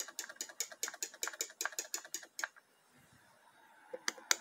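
6T40 automatic transmission shift solenoid clicking rapidly and evenly on a bench test, about six or seven clicks a second: the solenoid is actuating as it should. The clicking stops about two and a half seconds in and starts again near the end.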